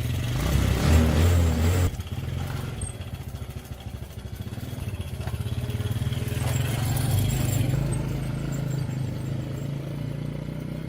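Small motorcycle engine running, loudest for the first two seconds, then swelling and easing off again before it cuts off suddenly.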